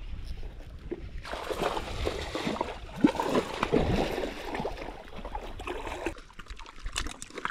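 Hooked fish thrashing and splashing at the water's surface while being played close to the shore: a burst of splashing from about a second in, loudest around three to four seconds, easing off after about six seconds.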